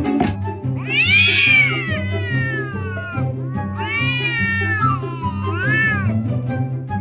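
Two domestic cats yowling at each other in a face-off: three long drawn-out calls, each rising and then falling in pitch, the first about two and a half seconds long. A music track with a steady low beat plays underneath.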